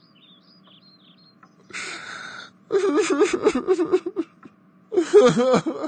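Wordless vocal sounds from an animated character: a short breathy gasp about two seconds in, then whimpering and crying, with another cry near the end.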